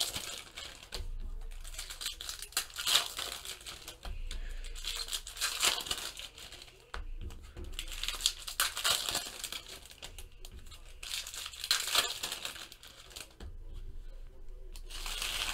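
Foil baseball card pack wrappers being torn open and crinkled by hand, in irregular rustling bursts.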